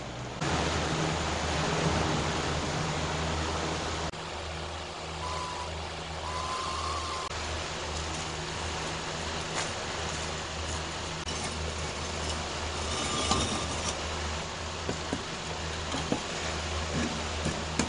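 A steady low rumbling hum, with several sharp knocks near the end as a concrete paver is set across the opening of a wood-fired sap evaporator's concrete-block firebox.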